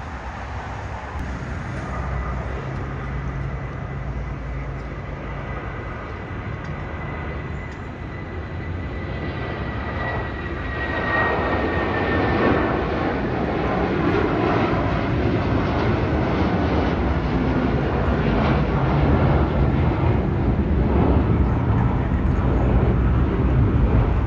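Jet airliner at takeoff power, a United Boeing 757 departing: a steady low engine rumble that grows louder from about a third of the way in and stays loud. A faint high whine in the first half dips slightly in pitch and fades.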